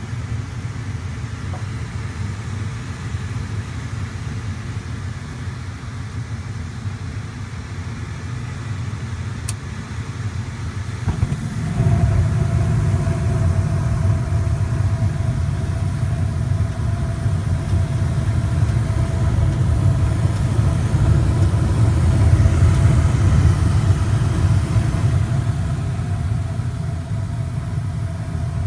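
Old Payne furnace lighting off. A steady low hum and a sharp click come first, then about eleven seconds in the burner ignites with a sudden jump into a loud low rumble, with a steady tone above it, that keeps going.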